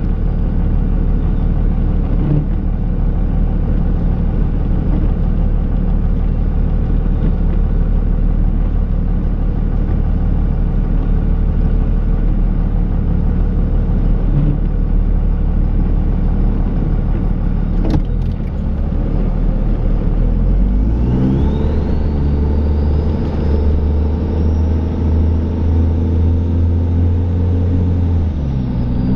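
Dodge Ram pickup's Cummins turbo-diesel engine running steadily under plowing load, with a sharp click about two-thirds through. The engine then revs up and holds at higher revs with a rising whine, and drops back near the end.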